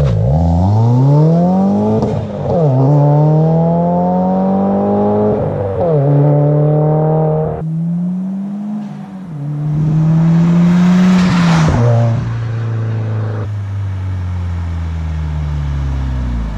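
Subaru WRX's turbocharged FA20 flat-four through an Invidia Gemini R400 exhaust, pulling hard through the gears: the note climbs, drops sharply at a shift about two seconds in and again about six seconds in, climbs again, then the car eases off and the note slowly falls over the second half, with a brief rush of hiss about eleven seconds in.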